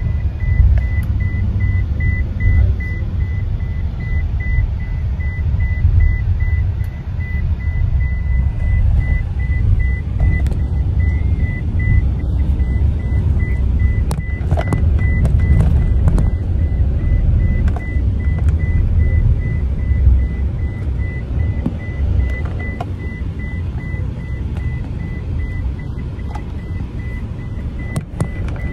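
Passenger van's engine and road rumble heard from inside the cabin while driving, with a high-pitched electronic beep repeating quickly in the background.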